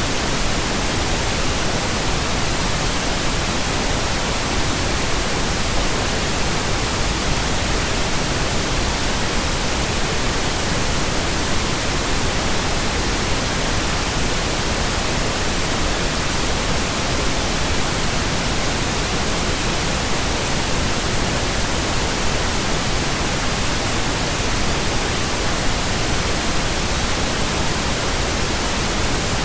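Steady pink noise: an even, unbroken hiss spread across the whole range from low to high, with no changes.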